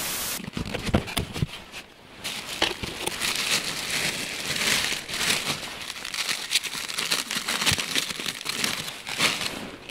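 Hands crinkling a plastic bag and aluminium foil as a wrapped packet is opened: a dense run of small crackles and rustles. It opens with a brief hiss of TV-static noise.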